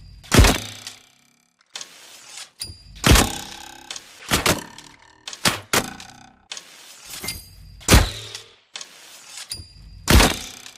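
Recurve bow being drawn and shot over and over: a soft creak and clicks as the string is pulled back, then a sharp thump of the string on release. This happens several times, with a few seconds between shots.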